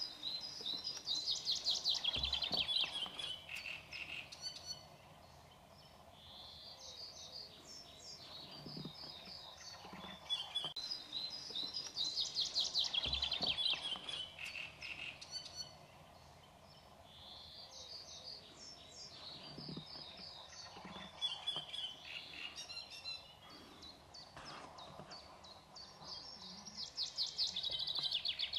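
Small songbird singing: a fast, trilled phrase of two to three seconds that drops in pitch, repeated about every ten seconds, with short chirps in between.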